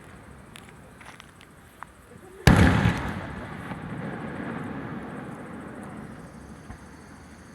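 A large aerial firework shell bursting with one loud boom about two and a half seconds in, its low rumble rolling away over the next few seconds. A few faint pops come before it.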